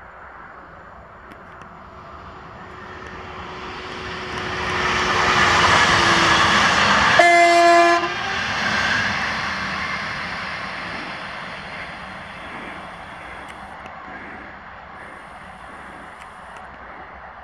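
Newag Impuls 2 electric multiple unit passing at speed: its running noise grows over several seconds, with a steady motor whine that drops in pitch as the train goes by. Then comes one short horn blast, the loudest moment, and the noise slowly fades.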